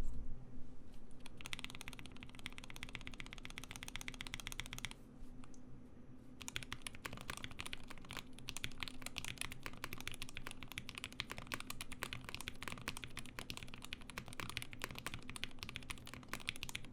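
Typing sound test on a Wuque Studio Ikki68 Aurora mechanical keyboard with Gateron Black Ink linear switches lubed with GS2 grease, ePBT keycaps and an aluminum plate. A run of fast key presses stops briefly about five seconds in, then continuous fast typing follows.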